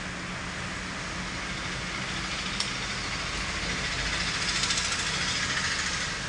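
Steady road traffic noise, swelling slightly near the end, with one sharp click about two and a half seconds in.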